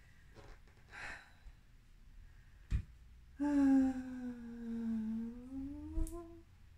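A woman lets out one long voiced exhale of about three seconds, its pitch dipping and then rising at the end. A softer breath and a light knock come before it.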